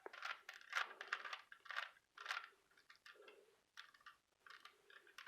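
Plastic Rubik's Cube faces being twisted by hand in quick succession through a solving algorithm, a run of light clicking rattles that thins out and grows fainter after about three seconds.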